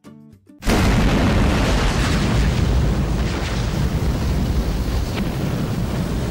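Intro sound effect: a couple of plucked guitar notes, then about half a second in a sudden loud fiery blast. It settles into a deep rumble that slowly fades.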